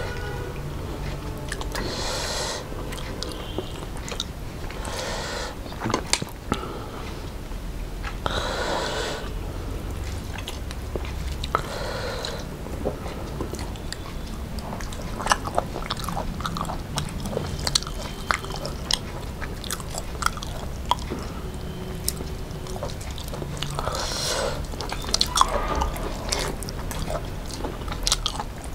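Close-up eating sounds of two people eating rice and fried fish with their hands: chewing, biting and wet mouth clicks, with a louder bite every few seconds.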